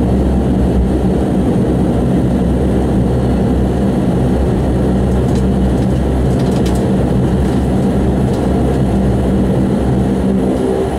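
Bombardier Dash 8 Q400's turboprop engines and six-bladed propellers droning steadily with a deep hum, heard from inside the cabin close to the propeller, as the plane rolls out on the runway after touchdown.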